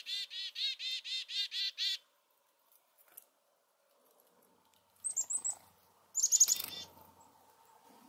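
Red squirrel chattering: a fast, even run of high notes, several a second, lasting about two seconds. After a pause come two short bursts of very high squeaky calls, about five and six seconds in.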